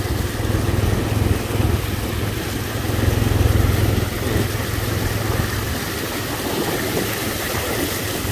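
Motorcycle engine idling steadily while a Toyota pickup drives through shallow floodwater and passes close by, loudest about three to four seconds in.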